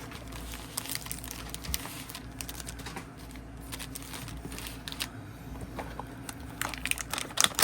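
Hands handling cardboard trading-card hanger boxes and wrapped packs: scattered light taps, clicks and crinkling, busier and louder near the end.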